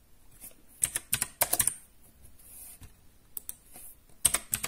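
Keys of a Gametech Black Rider mechanical keyboard with clicky blue switches being typed on: a quick run of keystrokes about a second in and another near the end.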